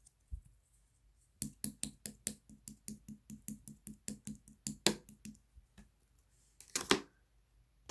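Red jelly slime being squished and poked by hand: a quick run of sticky clicks and pops, about five or six a second, then one longer, louder squish near the end.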